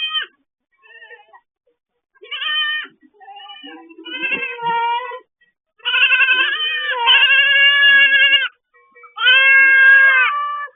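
Goats bleating: a run of repeated calls, short ones at first, then two long, loud calls over the second half.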